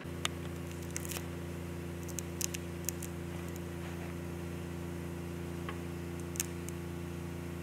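Steady low mechanical hum, like a motor running, that starts suddenly and holds an even pitch throughout, with scattered sharp clicks over it.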